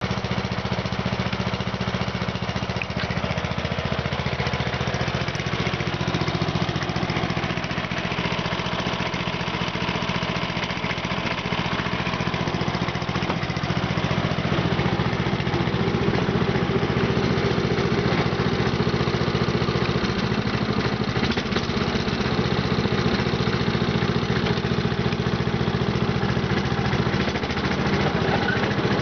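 Westwood 1200 ride-on lawn mower's engine running steadily, getting a little louder about halfway through.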